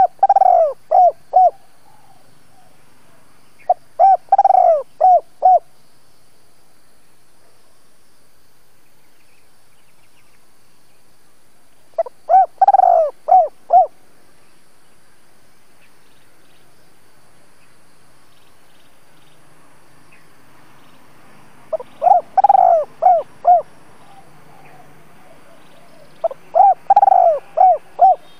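Spotted dove cooing: five short phrases of four or five coos each, every phrase with one longer, louder note near its start, separated by pauses of several seconds.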